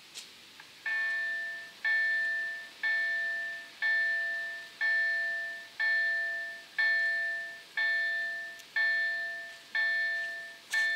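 KLD-4103 level-crossing warning bell of an SPR-1 automatic crossing system starting to ring about a second in, then striking about once a second. Each strike is a clear chime that dies away before the next. It is the crossing's warning that a train is approaching and the barriers are about to come down.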